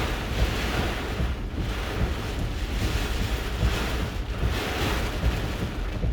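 Hurricane-force eyewall wind buffeting a parked vehicle, heard from inside: a steady low rumble under a rushing wind that swells in gusts and eases every couple of seconds.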